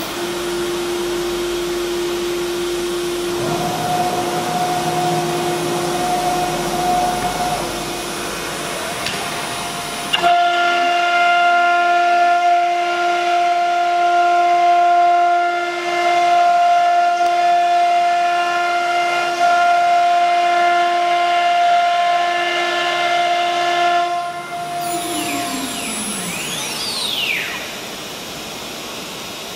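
CNC router spindle motor running at speed with a steady high whine. It grows louder and fuller about ten seconds in, with the bit working the board. Near the end it winds down, the whine falling in pitch and fading, leaving a lower machine hum.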